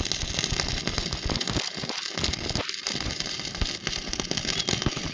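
Electric arc welding crackling steadily, a dense run of sharp irregular clicks, broken by a couple of brief dips around two seconds in.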